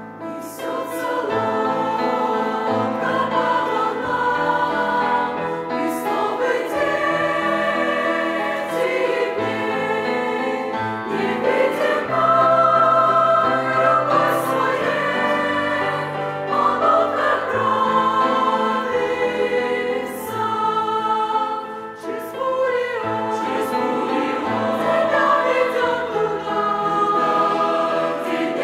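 Church choir singing a hymn in Russian, several voice parts in harmony over sustained low notes.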